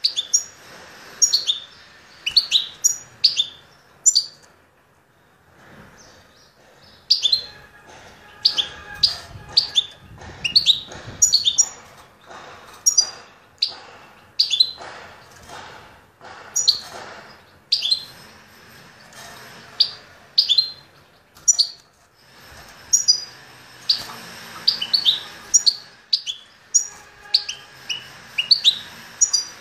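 Caged songbird calling in short, sharp chirps, several in quick succession at a time, with brief pauses between runs and one longer lull a few seconds in.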